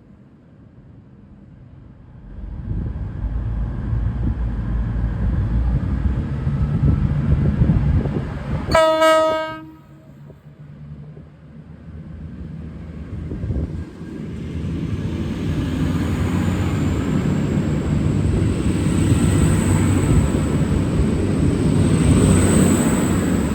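Two coupled V/Line VLocity diesel multiple units rumbling loudly as they move through the station. About nine seconds in, a short low-note blast sounds on the train horn. In the later part, a high steady whine rises over the rumble.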